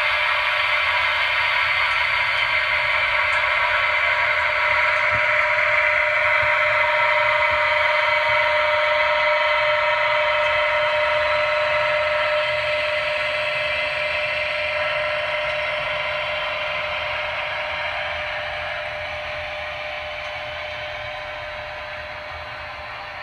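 H0 model train running on the layout: a steady whir and rumble of motor and wheels on the track that fades gradually over the second half.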